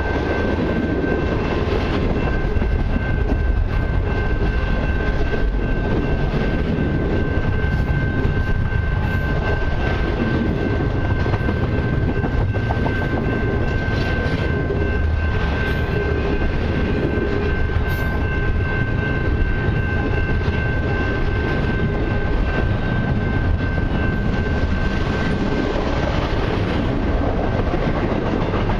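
Long freight train of autoracks and intermodal cars rolling past at close range: a steady, loud rumble of wheels on rail with occasional clanks. A steady high-pitched tone runs through it.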